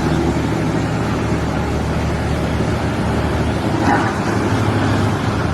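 An engine running steadily, with a brief sharper sound about four seconds in.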